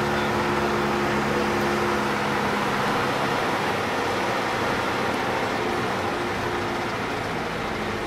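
A vehicle driving on a gravel road, its engine hum mixed with a steady rush of tyre and road noise. The engine hum fades about three seconds in while the road noise goes on.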